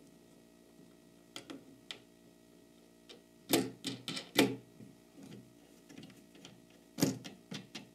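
Scattered small clicks and taps of metal bolts, washers and plastic star knobs being handled and fitted onto a plywood clamping bar. The sharpest clicks come about three and a half, four and a half and seven seconds in.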